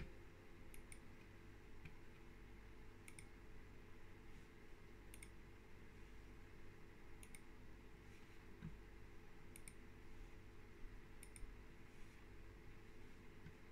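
Faint computer mouse clicks, a quick press-and-release about every two seconds, over a steady low hum.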